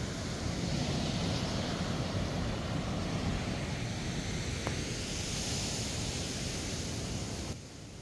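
Sea surf washing against a rock breakwater, with wind buffeting the microphone; it gets quieter near the end.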